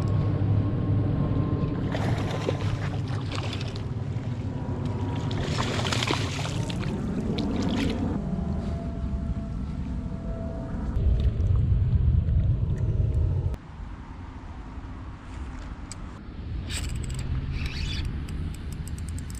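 A motor running steadily, its pitch rising for a couple of seconds about six seconds in; the sound drops off abruptly about two-thirds of the way through, leaving a quieter hum.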